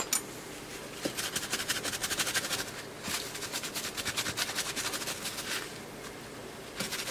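Quick back-and-forth scrubbing of the solder side of a circuit board with a cloth, cleaning up freshly soldered joints. It starts about a second in and stops a little before the end.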